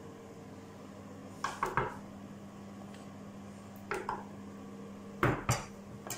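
Wooden spatula knocking and scraping against a stainless steel pot and a metal baking dish while scooping and spreading bolognese meat sauce: three short clusters of clinks and taps, the loudest near the end, over a faint steady hum.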